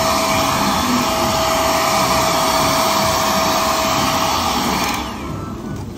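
Handheld hair dryer blowing steadily on a man's hair, with a constant whine over the rush of air. It stops about five seconds in.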